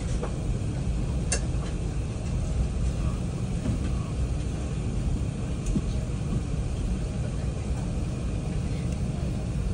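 Steady low cabin rumble inside an Airbus A380 taxiing after landing: engines at taxi power and the airframe rolling over the taxiway. There is a single light click just over a second in.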